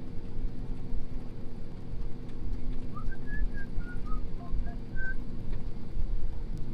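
John Deere T670i combine's engine and machinery droning steadily, heard from inside the cab. Between about three and five seconds in, a short run of high whistled notes stepping up and down over it.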